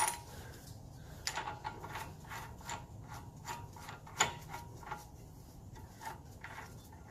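Irregular metallic clicks and clinks as a washer and axle nut are fitted onto the CV axle spindle at a 2000 Chevy Blazer's new front wheel hub, with a sharper ringing clink about a second in and another just past four seconds.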